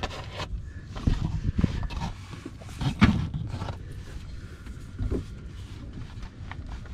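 Scattered knocks and clunks of hand tools and metal parts being handled during under-car work, the loudest about three seconds in, over a low steady background rumble.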